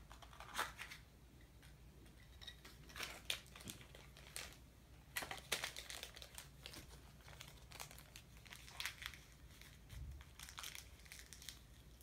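Crinkling and rustling of a toy blind-bag package being handled and torn open, in short irregular crackles.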